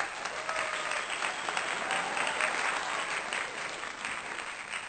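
Crowd applause: many hands clapping in a dense, steady patter, with a few faint voices in it.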